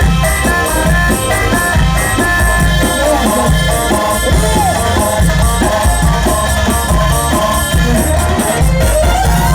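Loud Egyptian mahraganat-style wedding music: a heavy, repeating bass beat under a synth melody, with rapid shaker-like ticks on top.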